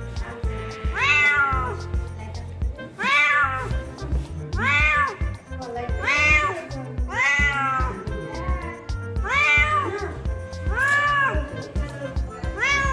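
Grey tabby cat meowing repeatedly: about seven drawn-out meows, each rising then falling in pitch, over background music with a steady beat.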